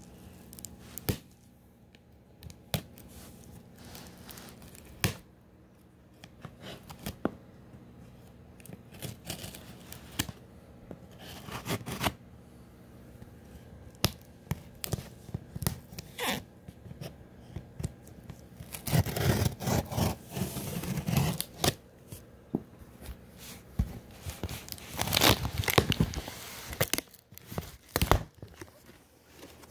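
Packing tape on a cardboard box being slit and torn, with scattered scraping and rustling of the cardboard. The tearing comes in louder stretches about two-thirds of the way through and again near the end.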